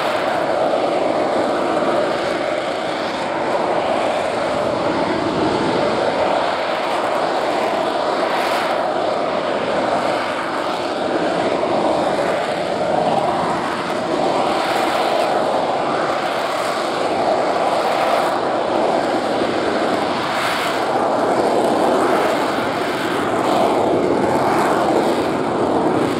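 Rolls-Royce Pegasus vectored-thrust turbofan of an AV-8B Harrier II, a loud, steady jet noise as the aircraft flies slowly past, swelling slightly near the end as it climbs away.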